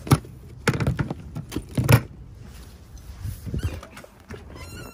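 Handling noise of objects being moved and set down: several sharp knocks and clunks in the first two seconds, lighter clatter after, and a quick run of small clicks near the end. No engine is running.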